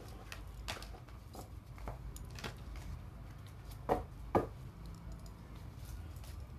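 Tarot cards being handled on a table: soft rustles and light clicks, with two sharper slaps about half a second apart around four seconds in.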